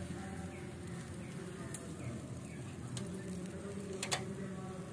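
A steady buzzing hum, with three sharp clicks, the loudest a double click about four seconds in.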